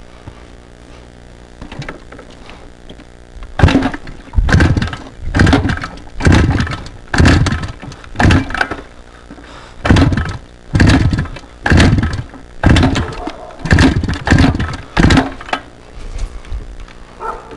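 Suzuki TM 250 two-stroke dirt bike being kick-started over and over, about one kick a second, a dozen kicks without the engine catching and running.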